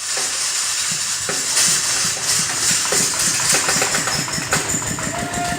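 Engine-driven grass chopper and hammermill machine running: a steady mechanical noise with a rapid low pulsing, a strong high hiss and occasional sharp clicks.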